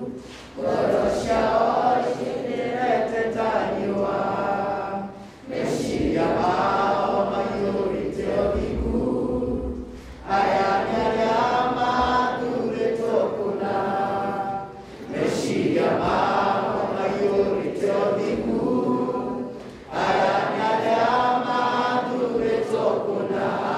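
A group of boys singing together as a choir, unaccompanied, in phrases with a short break for breath about every five seconds.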